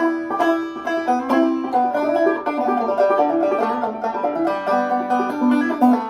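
Five-string banjo played clawhammer style: a steady, quick run of picked notes and ringing strings.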